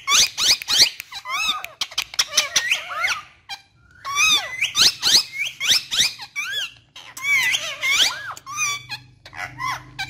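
Indian ringneck parakeets chattering: rapid, squeaky high calls that sweep up and down in pitch, coming in several bursts with short breaks between.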